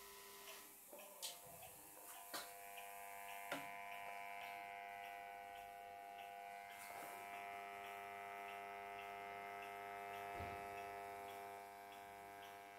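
Philco 71B cathedral vacuum-tube radio switched on and warming up: a steady hum of several held tones that slowly grows louder, then eases off near the end. A few sharp clicks come in the first few seconds.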